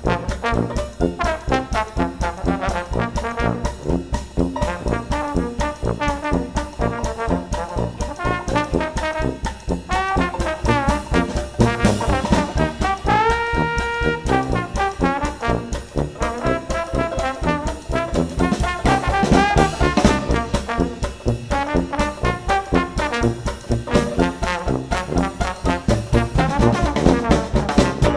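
Background instrumental music with a steady beat and shifting melody, with one long held note about halfway through.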